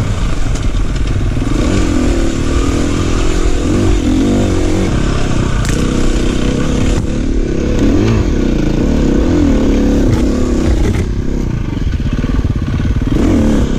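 KTM EXC-F 350's single-cylinder four-stroke engine under ride load, its pitch rising and falling constantly as the throttle is worked over rough dirt trail. A few sharp knocks from the bike over the rough ground come through in the middle.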